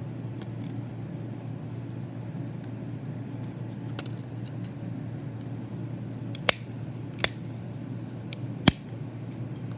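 Plastic inner cover of a Velux solar skylight remote being pressed back onto the case, its tabs snapping into place with a few sharp clicks, a faint one about four seconds in and three louder ones in the second half, the last the loudest. A steady low hum runs underneath.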